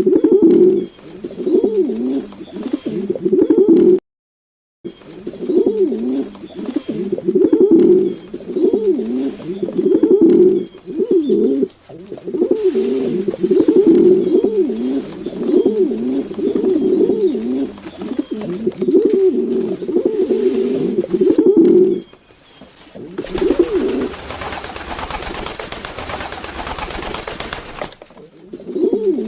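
Pigeons cooing over and over, low wavering coos one after another, broken by a brief dead silence about four seconds in. Later the cooing stops for about five seconds of even hissing noise, then resumes near the end.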